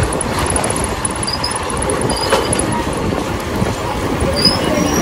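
Motorcycle riding along a road, heard from a helmet-mounted camera: steady engine, wind and road noise.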